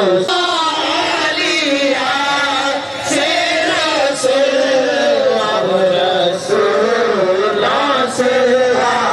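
Male voice chanting a devotional Urdu naat in long melodic phrases, with short breaks between the phrases.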